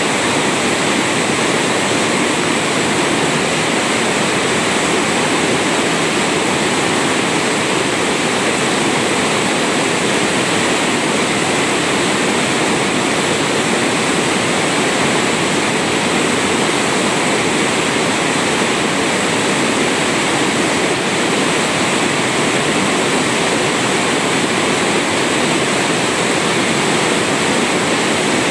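Waterfall: flowing water rushing in a loud, steady, unbroken hiss.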